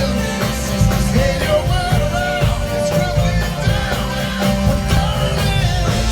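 Live concert music: a vocal group singing over a band, with a heavy, boomy bass.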